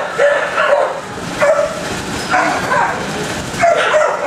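Other shelter dogs barking repeatedly in the kennels, a string of short, irregular barks.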